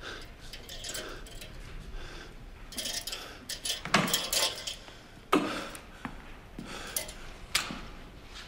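Metal clinks, rattles and sharp knocks of stainless steel lab equipment and fittings being handled. The loudest knocks come about four and five and a half seconds in, with two more near the end.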